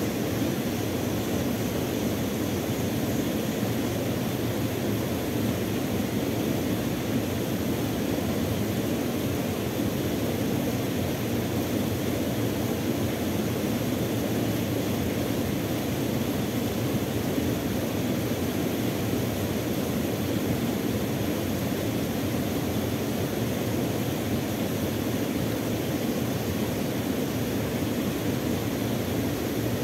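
Steady rushing of water pouring over a small waterfall into a river pool, an even, unbroken roar that doesn't change.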